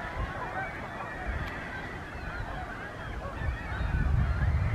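A flock of Canada geese honking, many short calls overlapping. A low rumble builds in the last second or so.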